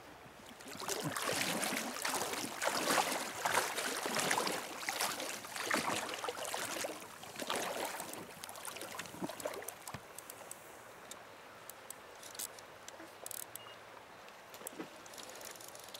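River water rushing and splashing, louder and choppier for the first half, then settling to a quieter steady flow with a few faint clicks.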